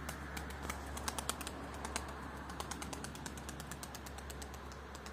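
Rapid, irregular sharp clicks, several a second, densest in the first two seconds and thinning out after, over a low steady hum.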